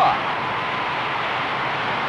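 Boxing arena crowd noise: a steady roar from the spectators during a flurry of punches.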